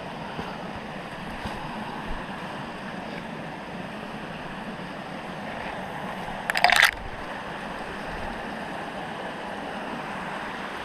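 Steady rushing of a small rocky creek's flowing water, with one brief crunching rustle about two-thirds of the way through.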